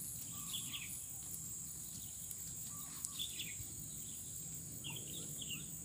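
Outdoor countryside ambience: a steady high-pitched insect drone, with a few short, high bird chirps every second or two.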